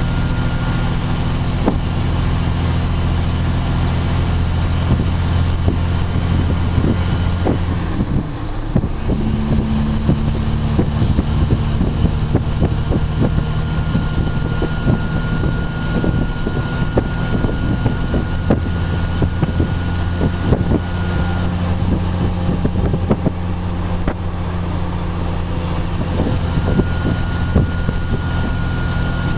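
Diesel engine of a loaded Kenworth logging truck, about 50 tonnes gross, pulling up a hill, with rattles and knocks throughout. The engine note breaks off briefly about eight seconds in and changes again later on.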